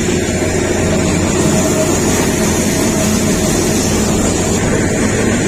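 Kalka–Shimla narrow-gauge toy train running along the line: a steady, loud rumble and rattle with a low engine hum underneath.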